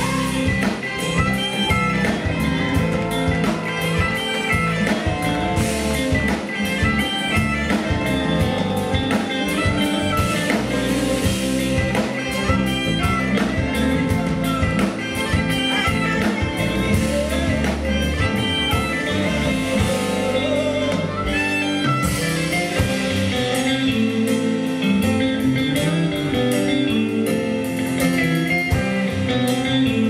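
Live band playing a song on electric guitar, keyboard and drum kit, with a woman singing the lead.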